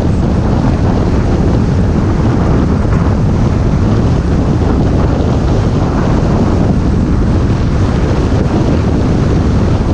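Wind blasting across a camera microphone mounted on the outside of a car moving at highway speed, a steady, loud, deep rushing noise.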